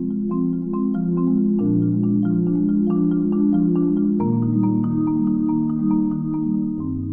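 Background music: a light tune of quick, evenly paced struck notes over a low bass note that changes about every two and a half seconds.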